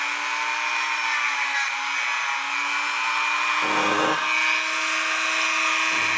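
Dremel rotary tool with a wire brush running at a steady high whine, buffing the brass parts of a cuckoo clock movement. There are two short low knocks, one a little past halfway and one at the end.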